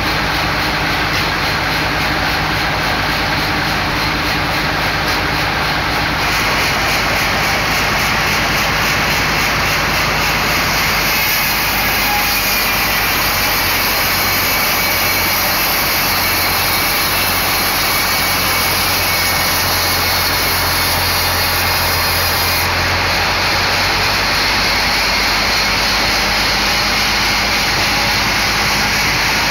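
Vertical band sawmill running steadily, its blade sawing lengthwise through a log on the carriage. The loud, even noise shifts in tone a few times along the way.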